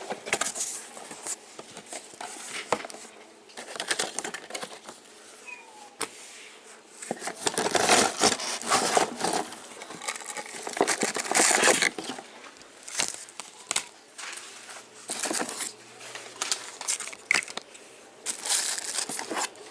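Packaging being handled during unboxing: cardboard and plastic wrap rustling and crinkling in irregular bursts.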